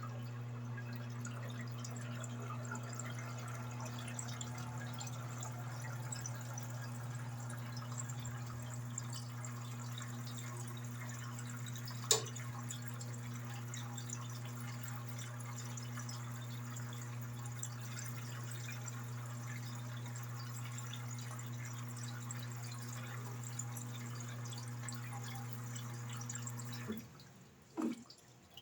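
Electrolux LED14 14 kg washing machine with water moving through it: a steady electric hum over water trickling and splashing, with a single click about halfway through. The hum and water stop abruptly near the end.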